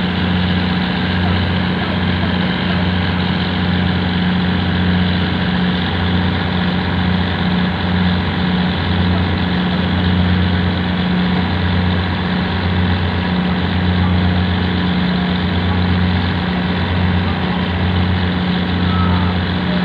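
A boat engine running steadily: a loud, low, even hum that wavers slightly.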